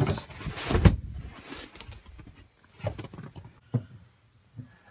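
Handling of the V-berth cushions and the locker beneath them: a loud rustling thump about a second in, a short rustle that fades, then a few soft knocks.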